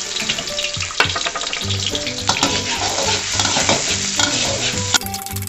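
Chopped garlic sizzling in a little hot oil in a wok, stirred with a spatula that scrapes and taps against the pan, with a sharp tap about a second in.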